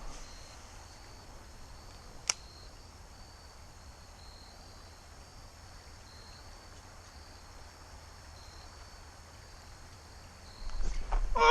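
Insects chirping steadily at a high pitch in an even, pulsing pattern. A single sharp click comes about two seconds in. Near the end a loud voice slides down in pitch.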